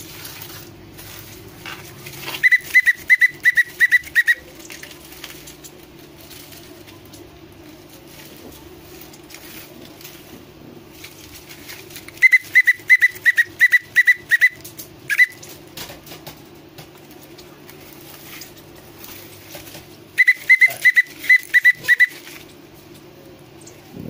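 A whistle blown in three runs of about eight short, quick pips at one pitch, spaced about ten and then eight seconds apart. It is blown as a feeding cue while a parakeet chick is trained to chase its food. A steady low hum runs underneath.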